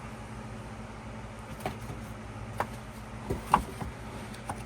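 A few light taps and clicks from handling a K-pop album's photo book, the sharpest about three and a half seconds in, over a steady low hum.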